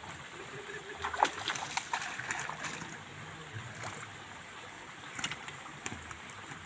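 Faint splashing of a hooked fish fighting at the surface of a pond, with scattered sharp clicks.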